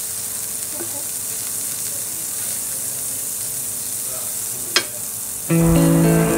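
Butter sizzling steadily on a hot grill pan, with a sharp tap just before five seconds in. Plucked-string background music comes in near the end.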